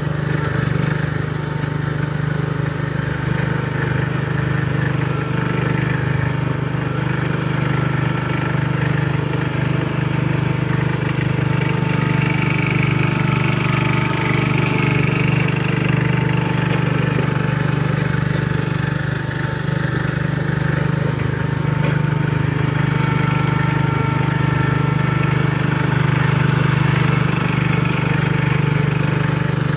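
John Deere 140 garden tractor's single-cylinder engine running steadily as the tractor drives back and forth pushing dirt with its front blade.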